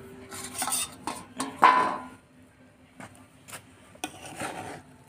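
Stainless-steel lid clanking and scraping against a steel kadai as it is lifted off, loudest about a second and a half in, followed by a few lighter clinks.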